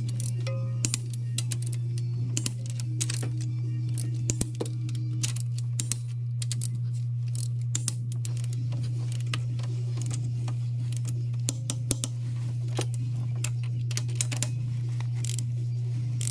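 Click-type torque wrench and ratchet tightening cylinder head bolts: sharp, irregular clicks of the ratchet pawl and the wrench breaking at set torque, over a steady low hum.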